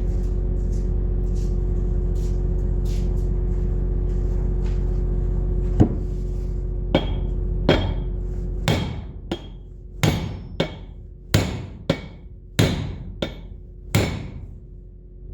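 Hammer blows on a steel drift bolt, driving the seized fan bearing shaft out of a John Deere 6081 thermostat housing: about a dozen sharp metal-on-metal strikes with a ringing tone, spaced roughly half a second to a second apart, starting about six seconds in. Before the blows there is a steady low hum.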